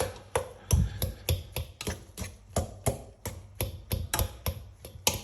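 A metal utensil knocking against a bowl in an even rhythm, about three clicks a second, as potatoes are mashed and stirred with butter.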